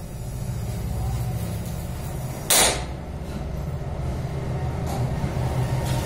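Low, steady rumble of road traffic that swells toward the end, with one short, loud hiss about two and a half seconds in.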